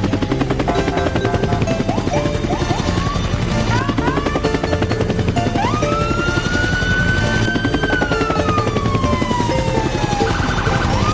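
Helicopter sound effect: fast rotor chopping with a turbine whine that rises about halfway through, holds, then slowly falls, over background music.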